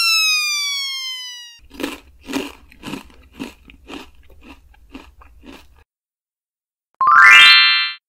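Cartoon sound effects of eating: a falling whistle-like glide fades out, then a run of about eight crunchy chewing bites, roughly two a second. A short rising glide comes near the end.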